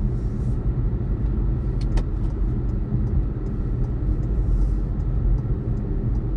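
Steady road and engine rumble inside a moving car's cabin, with one brief click about two seconds in.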